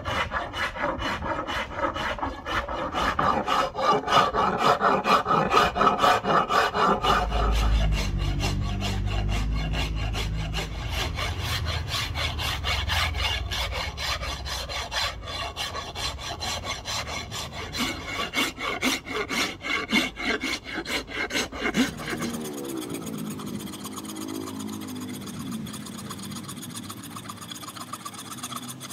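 Hand wood rasp filing a Siamese rosewood walking stick in repeated scraping strokes, the strokes becoming lighter about two-thirds of the way in.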